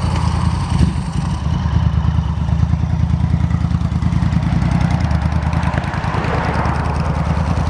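Motorcycle engine running steadily close by, a low even drone.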